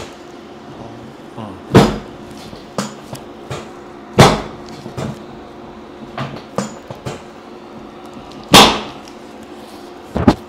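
Three loud thuds a few seconds apart, with lighter knocks and clicks in between: chiropractic adjustments being given on the treatment table.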